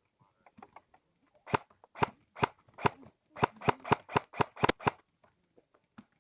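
Airsoft rifle firing semi-automatic shots close by: four sharp cracks about half a second apart, then a quicker string of seven.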